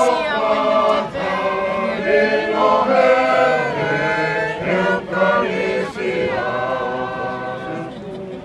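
A crowd of Tongans singing together unaccompanied, many voices holding long sustained notes like a hymn sung by a choir.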